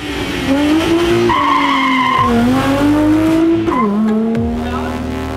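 A car engine accelerating hard, its revs climbing and dropping sharply at two gear changes, about two and almost four seconds in. The tyres squeal for about a second, starting about a second in.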